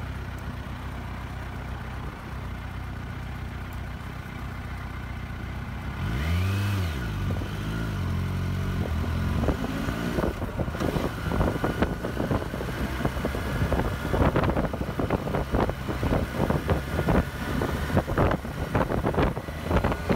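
Kawasaki Versys 1000 inline-four engine idling steadily, then revving as the bike pulls away and accelerates up through the gears. From about halfway through, wind buffets the microphone in loud gusts.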